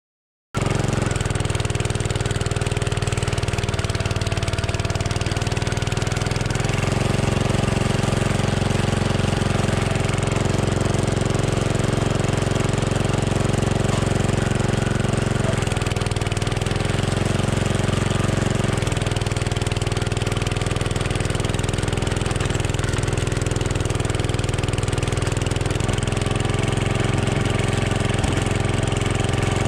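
Power King garden tractor's engine running steadily under load while plowing snow, its pitch dipping briefly a few times as the load changes.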